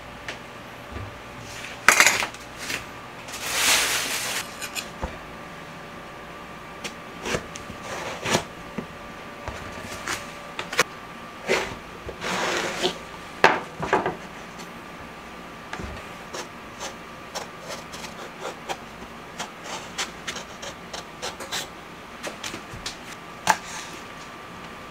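Eggplant being peeled into stripes with a peeler on a wooden cutting board: scraping strokes of the blade along the skin and knocks of the vegetable on the board. The last several seconds hold many quick, light taps of a kitchen knife on the board as herbs are chopped.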